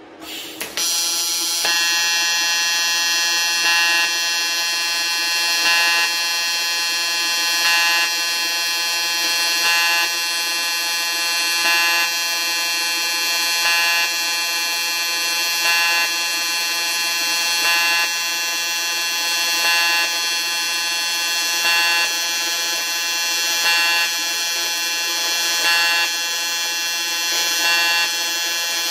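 AC TIG welding arc on aluminium: the arc strikes with a brief crackle just under a second in, then holds as a loud, steady electric buzz with many overtones, swelling slightly about every two seconds.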